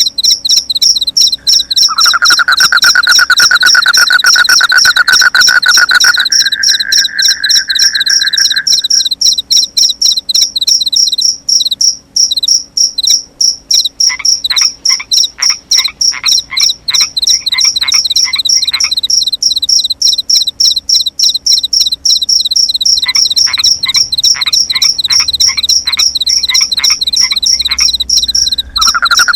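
Crickets chirping in a fast, steady pulse, with frogs calling over them: a long continuous trill early on, then two runs of quick repeated croaks, a few a second.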